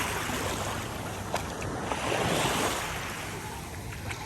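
Ocean surf: waves breaking and washing up the beach, swelling twice, the second time about two seconds in.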